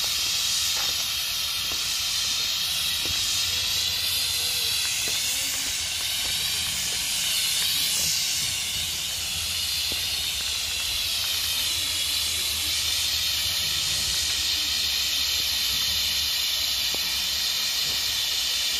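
Small saddle-tank steam locomotive, Caledonia Works No. 1219, standing and blowing off steam, a steady unbroken hiss with a faint low rumble underneath.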